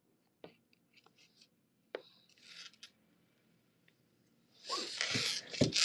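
Handling noise close to the microphone: a few light taps and clicks, then about four and a half seconds in a louder stretch of rubbing and rustling with two dull bumps.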